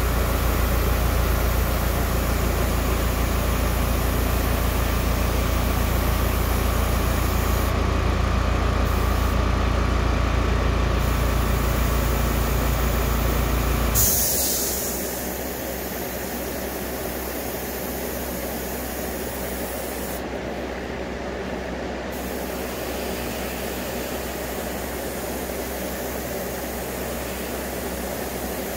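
Air compressor motor running with a steady hum, then shutting off about halfway through with a short sharp burst of hiss. The airbrush's air-and-paint hiss carries on underneath, breaking off briefly twice.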